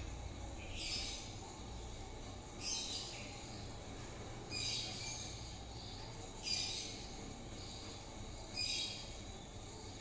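48-inch CMC industrial ceiling fan running on speed four, its motor giving a steady low hum. A short high chirp comes about every two seconds, six times.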